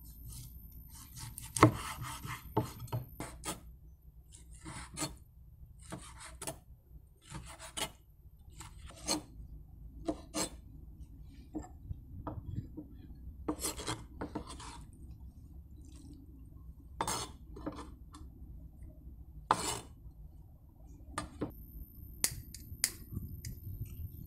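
Kitchen knife slicing lamb liver on a wooden cutting board: irregular knocks of the blade on the board and short scraping strokes, the loudest knock about a second and a half in.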